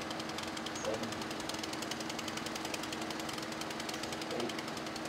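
An engine running steadily, a continuous even chatter of rapid regular pulses over a low hum.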